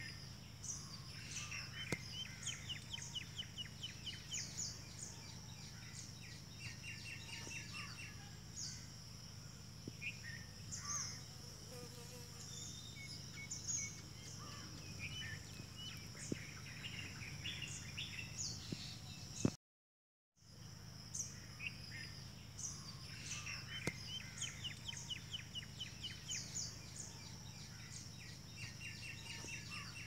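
Birds chirping and giving rapid trills over a steady, high-pitched insect drone. The sound cuts out for under a second about two-thirds of the way through.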